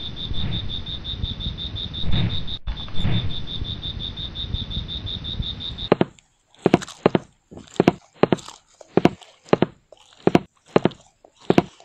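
Outdoor background hiss with a fast, even high-pitched ticking. About six seconds in it cuts to a series of short crunchy chewing sounds, a munching sound effect, one to two a second with silence between.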